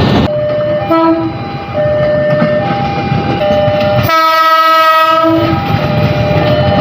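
KRL commuter electric train horns sounding the semboyan 35 signal, the horn call that a train is about to move off. Several short, abruptly spliced clips of loud horn blasts switch between a lower and a higher pitch, mostly over train rumble.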